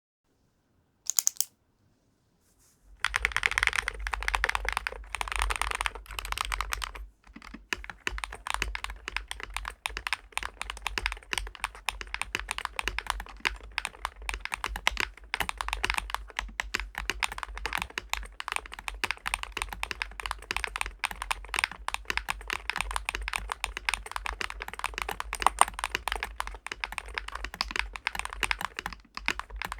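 Typing on a DAREU COOL60 gaming keyboard with magnetic switches: a single short sound about a second in, then fast, continuous keystroke clicking from about three seconds in.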